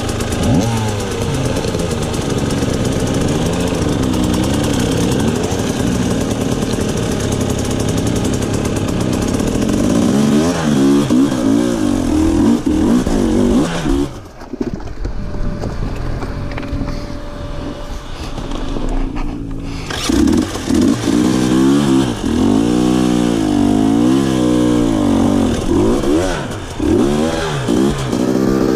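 Dirt bike engine revving up and down in rapid, repeated bursts as it claws up a steep creek bed. About halfway through the revs drop away and the engine runs low and quieter for several seconds, then the hard revving picks up again.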